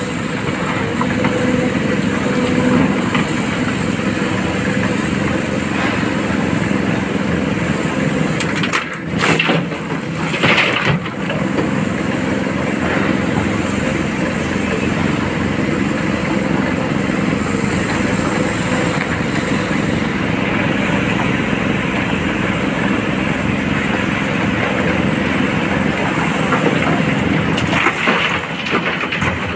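Heavy diesel engine of an excavator running steadily close by, with short knocks about nine and eleven seconds in and rock clattering down a spoil heap near the end.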